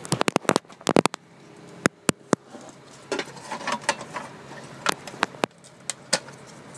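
Handling at an air conditioner's electrical disconnect to shut off the power: a quick run of sharp clicks and knocks in the first second, then scattered single clicks.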